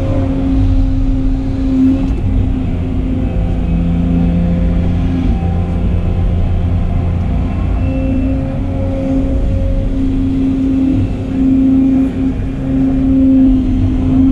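Excavator's diesel engine running steadily under load, with the hydraulic pump's hum, heard from inside the cab. The pitch dips and returns as the bucket dumps sand into a dump truck and the machine swings for the next load.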